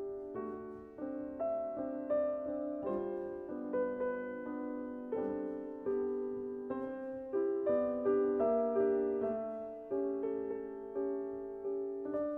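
Gentle solo piano music: single notes and chords struck one after another and left to ring and fade.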